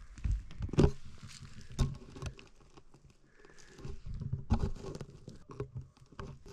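Irregular light crunches, taps and rustles of close handling and movement on the ground, with a few soft thumps.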